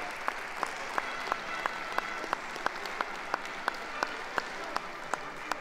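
Audience applauding, with sharp single claps standing out in an even beat of about three a second.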